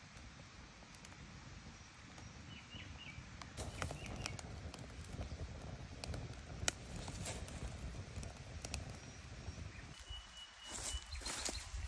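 Small twig fire crackling, with scattered sharp pops over a low outdoor rumble; a cluster of louder clicks near the end.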